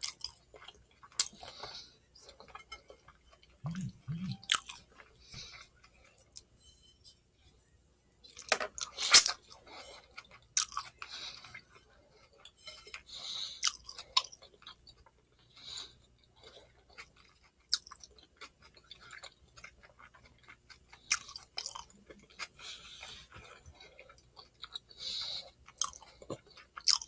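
Close-up chewing of a Philly cheesesteak sub: wet mouth sounds, smacks and small clicks coming in irregular bursts, the loudest cluster about nine seconds in.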